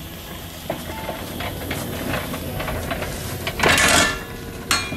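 Scattered light metallic clinks and knocks from handling the steel frame of a miniature railway's steaming bay. There is a short loud rush of noise about three and a half seconds in and a sharp clank near the end.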